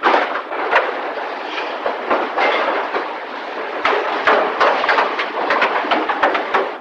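Car body assembly line clatter: steel body panels and jig clamps clanking, with many sharp metallic knocks over a dense, continuous factory din.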